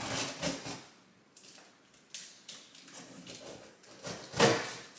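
Scissors cutting through packing tape on a cardboard shipping box, with the cardboard rustling and scraping as it is worked open: a string of irregular scrapes and rustles, the loudest about four and a half seconds in.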